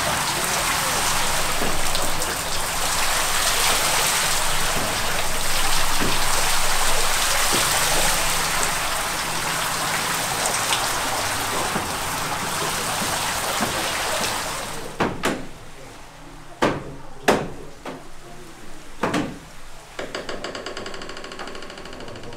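Water pouring and splashing off the paddles of the ship mill's turning wooden water wheel, a steady rain-like rush. About 15 seconds in this gives way to irregular wooden knocks and clacks from the mill's wooden gearing, with a steady humming tone near the end.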